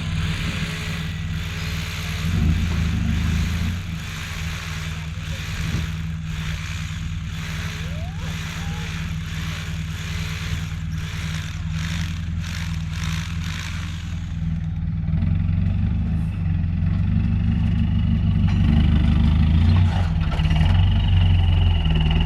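Delivery truck's engine running steadily, with a hissing, clicking clatter over it for the first two-thirds; the engine gets louder in the last several seconds.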